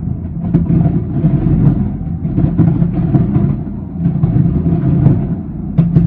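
Aerial fireworks bursting in a dense, continuous barrage: deep overlapping booms with a few sharper cracks, one about half a second in and a pair near the end.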